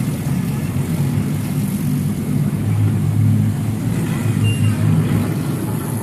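Small family roller coaster train running along its steel track, heard from a seat on board: a steady low rumble of wheels on rail.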